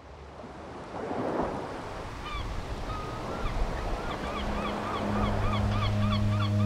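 Seabirds calling over surf and wind. A series of short, repeated calls starts about two seconds in and comes faster and faster. A steady low hum comes in about four seconds in.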